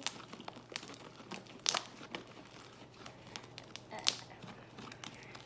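Homemade borax slime being squeezed and pulled apart by hand: faint sticky crackling with a few sharp pops, the loudest two about a third of the way in and near the end.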